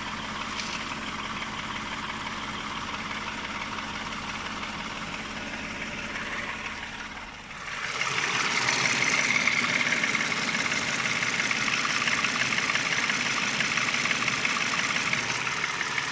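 Toyota 2GR-FE 3.5-litre V6 engine idling with a knock, the fault the recording is made to show. About eight seconds in, the sound dips for a moment, then comes back louder and brighter.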